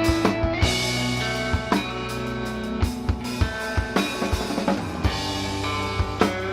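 Rock band playing: drum kit beating a steady rhythm of kick and snare hits under sustained electric guitar and bass notes.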